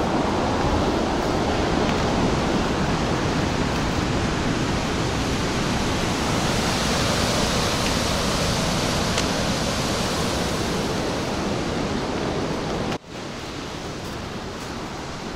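Rough sea surf breaking on a rocky shore, heard as a steady, loud rush of noise mixed with wind on the microphone. It drops suddenly to a lower level about thirteen seconds in.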